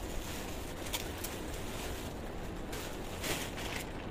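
Steady low background hiss and hum, with a few faint brief rustles or clicks.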